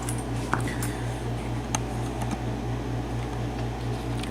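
Steady low machine hum, pulsing evenly a few times a second, with a few faint light clicks.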